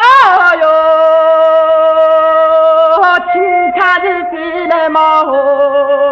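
Music: a wordless, voice-like melody that swoops up at the start into a long held note, slides quickly up and down, then settles on another held note with a light wobble.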